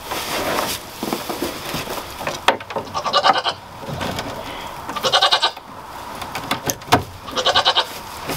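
Nigerian Dwarf goats bleating three times, each a short, quavering call, over the rustle of hay being handled, with a couple of sharp knocks.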